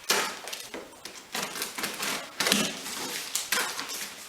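Cardboard shipping box being opened with a knife and by hand: a run of irregular scrapes, rips and rustles of cardboard and packing tape.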